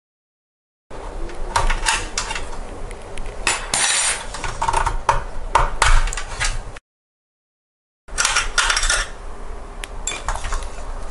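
Thin metal parts of a PC case clinking and rattling as hands remove the expansion-slot covers to make room for a graphics card, with many small taps and clicks. The sound breaks off into dead silence for about a second partway through.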